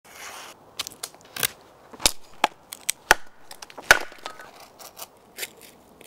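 A knife blade slicing through paper with a short hiss, then a run of sharp, irregular cracks and knocks, the loudest about four seconds in.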